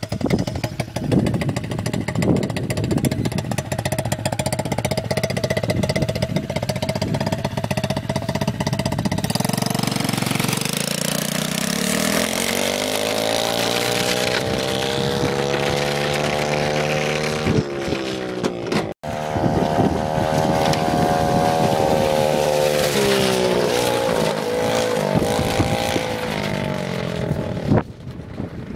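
110 cc pit bike's single-cylinder four-stroke engine running at low revs, then revving up and pulling away, its pitch climbing in steps through the gears under the load of a 50 kg air conditioner dragged behind it. The sound cuts out for a moment about two-thirds in, runs on at high revs with a couple of dips, and drops off near the end.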